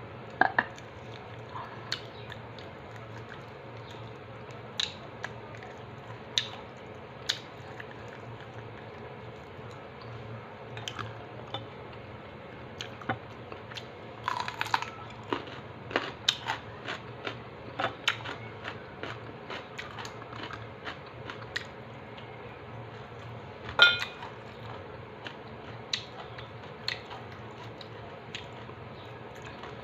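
Crispy chicharon being bitten and chewed close to the microphone: scattered sharp crunches and crackles with softer mouth sounds between, one crunch about two-thirds of the way through louder than the rest. A steady low hum runs underneath.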